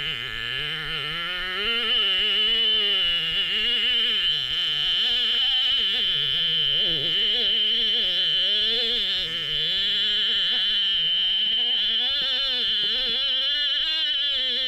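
A voice singing underwater in a slow, wavering line, its pitch sliding up and down, over a steady high tone.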